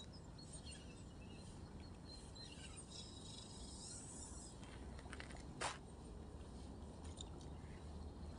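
Faint outdoor ambience: a low wind rumble with scattered faint bird chirps, and one sharp click about five and a half seconds in.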